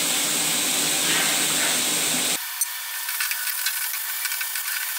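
Grated carrot and coriander frying in a steel kadhai with a steady sizzle, then, about two and a half seconds in, a wooden spatula stirring and scraping against the steel pan with many small scrapes and ticks.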